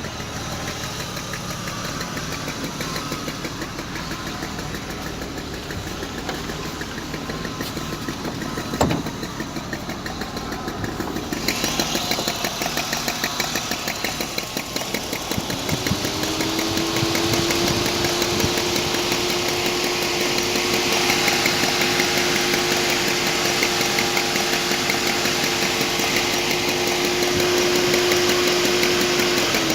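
BMW E34 520i inline-six running with a fast, even knock from the engine that the owner cannot diagnose. There is one sharper knock about nine seconds in, and about halfway a steady whine rises in and holds to the end.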